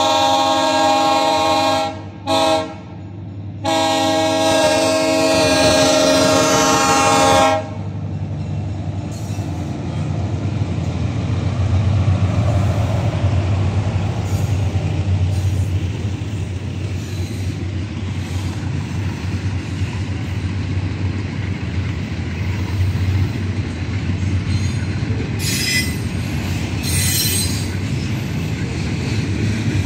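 Ferrovalle diesel freight locomotive's multi-tone air horn sounding at a grade crossing: a blast ending about two seconds in, a short toot, then a long blast that cuts off at about seven and a half seconds. The locomotive and a long string of freight cars then roll past with a steady low rumble and wheel clatter, with brief squeals near the end.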